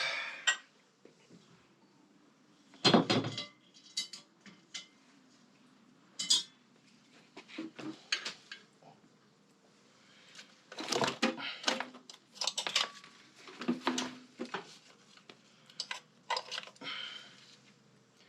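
Metal tools and small motorcycle parts clinking and clattering in scattered knocks as work goes on at a bench, with the loudest clank about three seconds in and a busier run of clinks later on.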